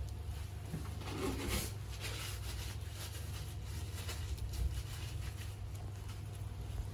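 Steady low background hum with faint rustling and light taps of plastic-gloved hands laying banana slices onto a crepe, with a brief louder rustle about a second and a half in.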